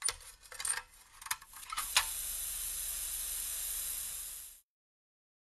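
A few light clicks and knocks as a rusty tin toy truck cab is handled, then, about two seconds in, a steady hiss of paint being sprayed that cuts off sharply near the end.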